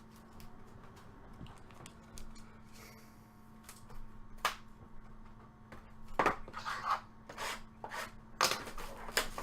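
Baseball trading cards being handled and flipped: scattered light clicks and rustles, busier and louder over the last few seconds.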